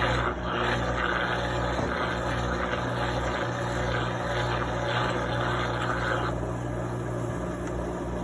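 Cônsul Facilite 11 kg washing machine running with its drum bearing freshly replaced: a steady motor hum under a rushing noise that drops away about six seconds in, leaving the hum.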